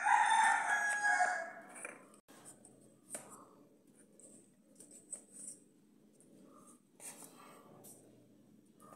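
A loud, held animal call with a steady pitch, lasting about two seconds at the start. Then come faint, scattered soft taps as paper cups of batter are set down in an aluminium tin.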